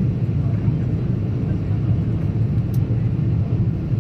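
Airliner cabin noise on the landing approach: a steady, loud, low rumble of engines and airflow heard from inside the cabin.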